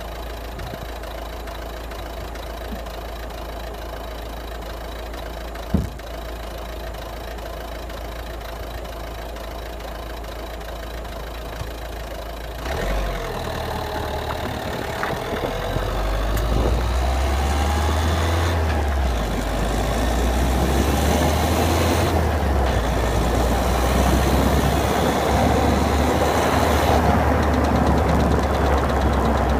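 Citroën DS3 110 HDi diesel engine running, recorded for a clicking noise the owner hears from the car. One sharp knock comes early on. A little under halfway the sound changes abruptly and gets louder, and it is louder still from a little past halfway.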